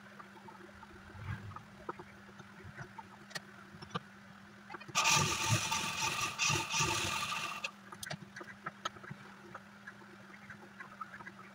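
Electric sewing machine stitching in one burst of about three seconds around the middle, a motor whine over the run of the needle. Light clicks and rustles of fabric being handled come before and after it.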